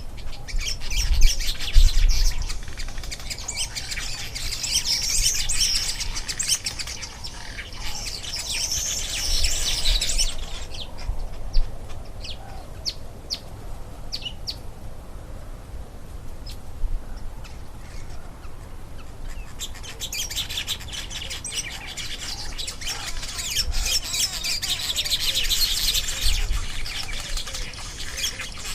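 Weaverbirds chattering and chirping in dense bursts, thinning to scattered single chirps for several seconds midway before the chatter picks up again. A couple of low thumps come about a second in.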